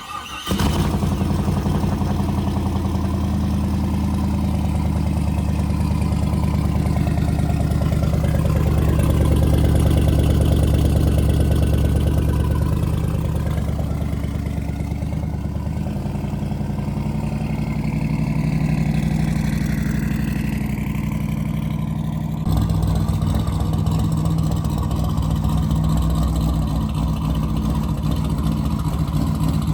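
Twin-turbo LS V8 catching about half a second in and then running steadily, on an engine with one damaged, out-of-round piston. The sound shifts abruptly about 22 seconds in.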